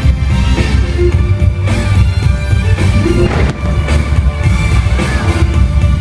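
Loud music with a heavy bass beat, the soundtrack of a pyromusical fireworks show, with a few sharp bangs cutting through it.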